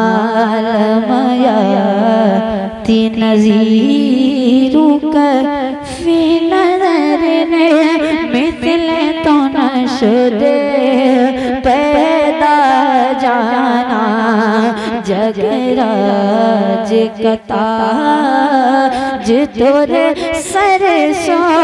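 A young boy singing a naat (devotional Urdu song) solo into a microphone, drawing out long, wavering melismatic notes.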